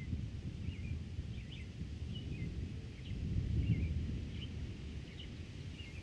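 Wind blowing across a field, a low noise that swells for a second or so in the middle, with small birds chirping over it in many short high calls.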